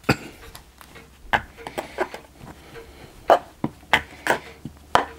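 A metal spoon pressing and tapping Petrobond oil-bonded moulding sand down into the drag of a casting flask: a scatter of sharp, irregular taps and knocks.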